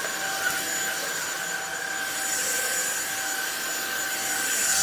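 Cordless stick vacuum running steadily: a constant motor whine over rushing air.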